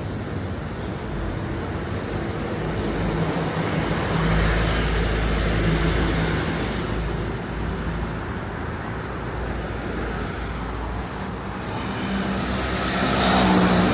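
Road traffic: motor vehicles passing over a steady traffic hum, one swelling past about four seconds in and a louder one near the end.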